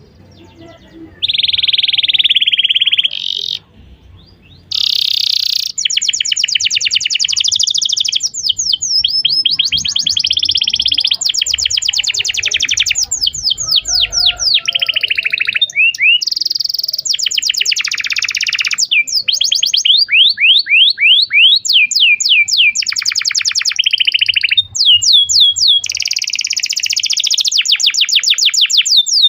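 Domestic canary singing a long, loud song of fast trills, rows of rapidly repeated sweeping notes and rolling phrases, with a short break a few seconds in.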